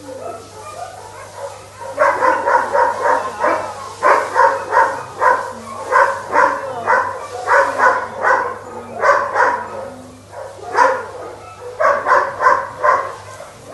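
A dog barking repeatedly in quick runs of about three barks a second, starting about two seconds in, with a couple of short pauses.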